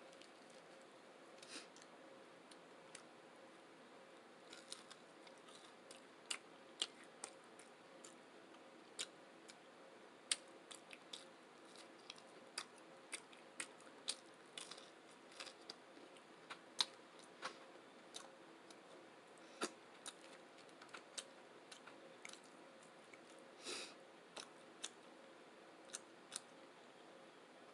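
Close-miked eating: irregular wet mouth clicks and smacks of chewing, a few each second, with a cluster of louder ones a little before the end.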